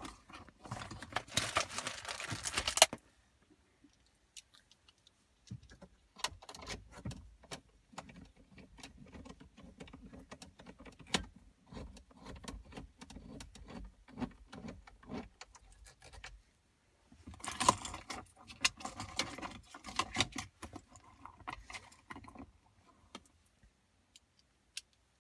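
Small metal parts jingling and clicking as screws and a tool are handled while the dashboard screen module is fitted back onto its mounting posts. There are two louder spells of jingling, one near the start and one about two-thirds of the way in, with scattered clicks and handling noise between.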